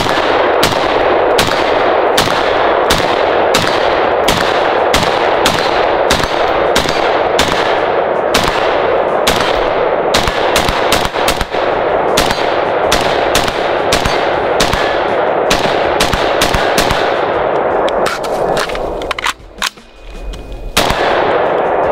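IWI Tavor X95 bullpup rifle firing a long, steady string of semi-automatic shots, about two a second, with each report's echo running into the next. The firing stops a few seconds before the end.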